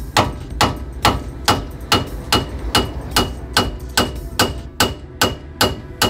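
A hammer repeatedly striking the steel front suspension of a London black cab at the ball joint, a steady run of blows a little over two a second, each with a short metallic ring. The blows are meant to shock the ball joint's tapered pin loose so it pops out.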